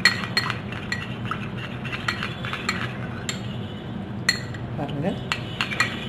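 Metal spoon stirring beetroot juice and honey in a small glass bowl, clinking against the glass at irregular intervals, several times a second, each clink ringing briefly. A steady low hum runs underneath.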